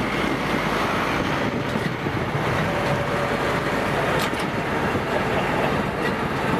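Large tractor's diesel engine running steadily under load as it pulls a soil-working implement past, with the low rumble of the machinery crossing the field.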